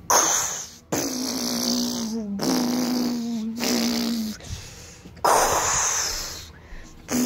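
A child making spaceship sound effects with his mouth: a whooshing blast, then a steady buzzing engine hum for about three seconds, then another whoosh near the end.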